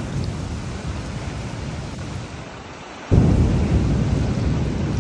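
Steady rain with low thunder rumbling. The rumble eases off, then a sudden loud thunderclap about three seconds in keeps rumbling on.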